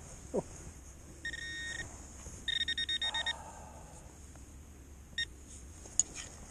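Handheld pinpointer beeping as it locates a metal target in the dug soil: a steady beep about a second in, then a quick run of short beeps, and one more short beep later. A brief falling sound comes near the start and a sharp click near the end.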